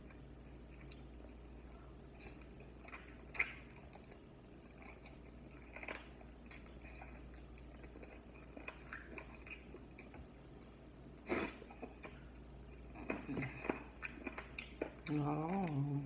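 Close mouth sounds of a person eating chicken wings by hand: chewing, lip smacks and scattered wet clicks, with a sharper smack about eleven seconds in. Near the end there is a short hummed voice.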